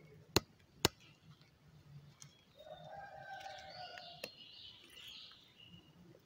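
Two sharp clicks near the start, then a rooster crowing once, faintly, from about two and a half seconds in.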